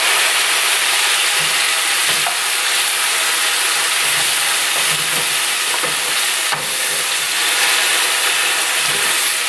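Dry white wine hitting a hot stainless steel skillet of toasted arborio rice and mushrooms, setting off a loud, steady sizzle as the alcohol cooks off, while a wooden spoon stirs and scrapes the rice with faint knocks. The sizzle starts as the wine goes in.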